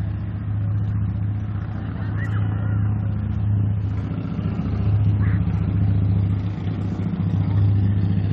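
Steady low engine hum, swelling a little a few times.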